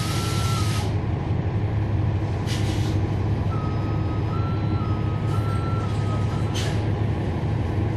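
The Cummins ISL9 diesel of a NABI 40-SFW transit bus running steadily, heard from the rear of the bus. A hiss of compressed air cuts off about a second in, and two short air hisses follow. A quiet warning tone steps back and forth between two close pitches, twice.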